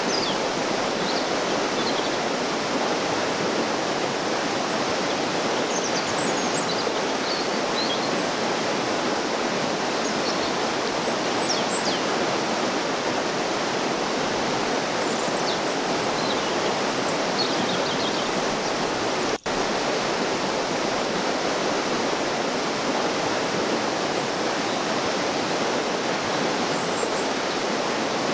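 Fast, muddy river rushing steadily over a riffle, with scattered high chirps of birds in the trees above it. The sound cuts out for an instant once, about two-thirds of the way through.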